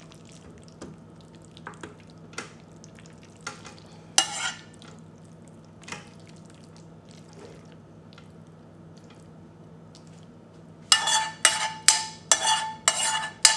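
A metal spoon scraping creamy pasta out of a nonstick frying pan, with soft scrapes and clicks, then a quick run of sharp ringing taps against the pan near the end as the last sauce is knocked out.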